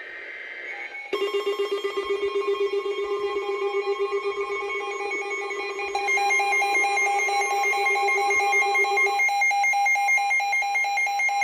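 Several NOAA weather radios going into alarm together: a short warbling data burst at the start, then from about a second in a steady attention tone mixed with rapid pulsing alarm beeps, with more beeping joining about six seconds in. The alarm announces a severe thunderstorm warning.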